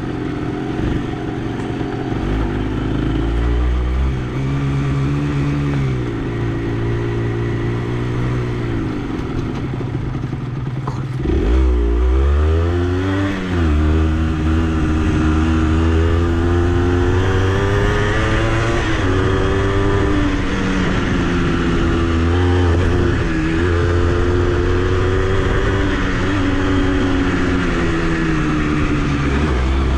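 Honda CRM80's small single-cylinder two-stroke engine running under way, its pitch rising and falling as the throttle opens and closes. About eleven seconds in the revs drop and then climb sharply, and it runs louder after that.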